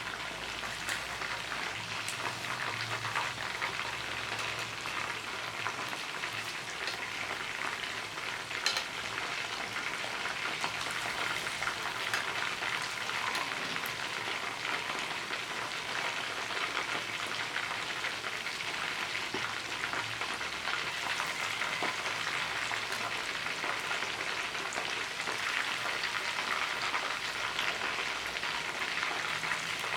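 Chicken wings frying in hot oil: a steady crackling sizzle, with one sharper pop about nine seconds in.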